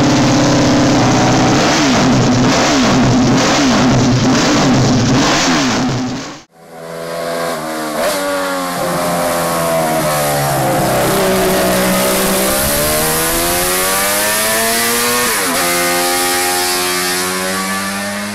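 Honda JLSP 305 replica's liquid-cooled five-cylinder four-stroke racing engine revved hard at standstill with sharp throttle blips. After an abrupt cut, the bike runs at high revs under way, its note climbing, dropping at gear changes and climbing again.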